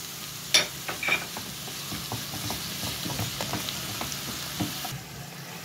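Minced beef and chopped onion and peppers sizzling in hot oil in a frying pan, while a wooden spoon breaks up and stirs the mince with many soft scrapes and taps against the pan. The sharpest tap comes about half a second in.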